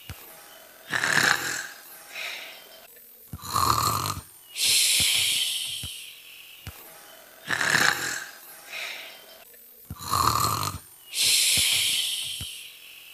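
Imitated snoring, repeating twice about six and a half seconds apart: a short snort, then a rumbling snore on the breath in, then a long hissing breath out that fades away.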